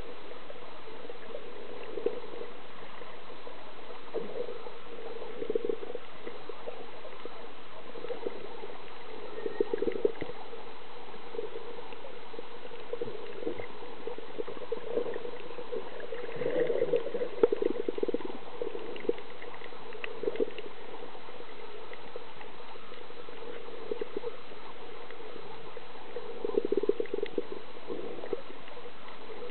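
Muffled underwater sound picked up through a camera's waterproof housing: a steady dull hiss with a low hum, broken every few seconds by short flurries of bubbling and gurgling water.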